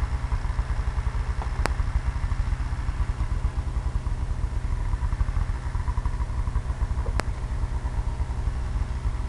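Snowmobile engine running in a steady low rumble, heard from on board. Two short sharp clicks cut through it, one near the start and one near the end.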